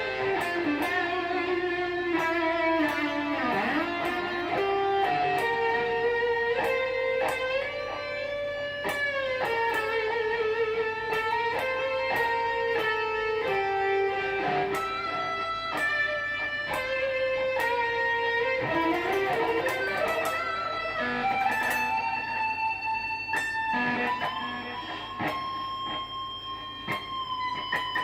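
Electric guitar on a high-gain distorted lead tone from its Seymour Duncan JB bridge pickup, played through a Boss GT-100 into a Harley Benton GPA400 power amp. It plays single-note lead lines with bends and vibrato, ending on a long held note.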